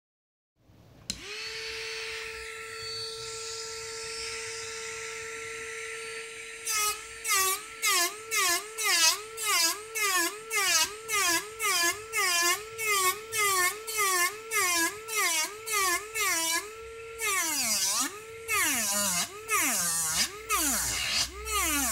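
Multibor Mini nail drill's handpiece motor starts and runs with a steady whine. Then its sanding cap is pressed against suede over and over, about twice a second: each press drags the motor's pitch down, with a scratchy grinding noise. In the last few seconds heavier presses pull the pitch much lower.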